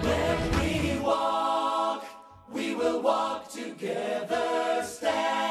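Song with several voices singing together in harmony. The low instrumental backing drops out about a second in, leaving the voices alone, and the phrases break off briefly near the middle.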